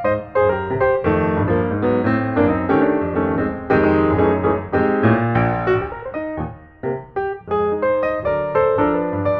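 Background piano music with many quick notes.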